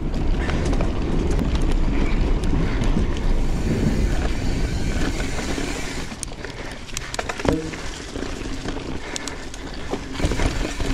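Wind rushing over the microphone and a YT Izzo mountain bike rolling over a dirt trail, its tyres and frame rattling. The rush eases about halfway through, leaving scattered sharp clicks and one loud clack about seven and a half seconds in.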